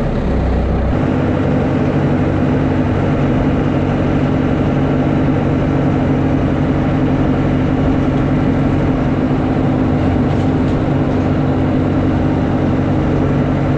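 2002 Bobcat S250 skid-steer loader's diesel engine running steadily, heard from inside the cab as the machine drives; the engine note shifts about a second in.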